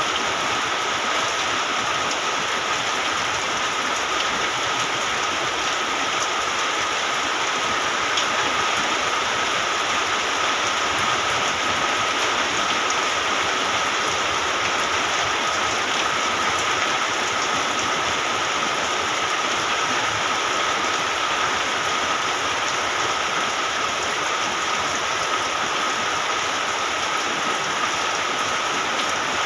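Rain falling steadily, an even hiss of drops, with a steady high-pitched tone running underneath.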